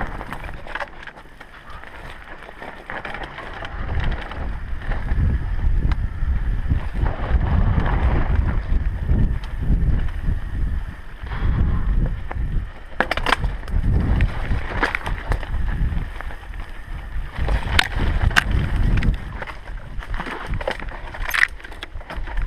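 Mountain bike rolling fast down a dirt and stony singletrack: a steady low rumble of tyres and wind buffeting the camera microphone, rising and falling with speed. In the second half, several sharp clacks as the bike rattles over rocks and bumps.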